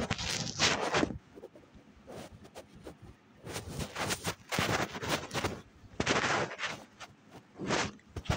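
Rubbing and knocking right against a phone's microphone as it is handled against skin and clothing, in several scratchy bursts of half a second to a second with quieter gaps between.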